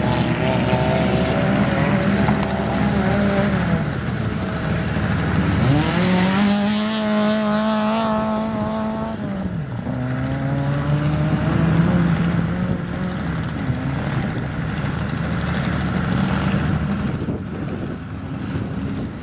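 Autocross race cars' engines running hard on the dirt circuit. Pitch falls away a few seconds in and then climbs steeply under full throttle, held high for a few seconds before dropping sharply as the driver lifts off, then picks up again at a lower, steadier pitch.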